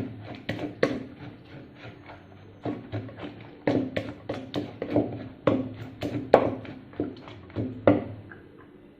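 A pestle knocking in a mortar as chili paste is pounded and mixed: a series of irregular sharp strikes, roughly two a second, that stop shortly before the end.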